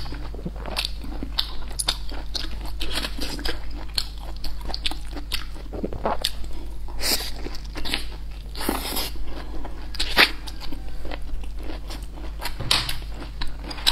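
Close-miked eating sounds: a person biting into and chewing a filled wrap, with many small crunches and a few louder bites about 7 and 9 seconds in.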